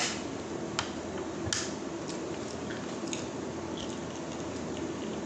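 Fingernail picking and clicking at the pull tab of an aluminium drink can that won't open: a few faint sharp clicks, mostly in the first three seconds, over a low steady hiss.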